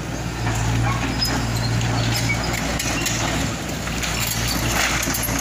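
Hyundai tracked excavator's diesel engine running steadily, with scattered knocks and clatter of debris as it works the rubble of a collapsed building.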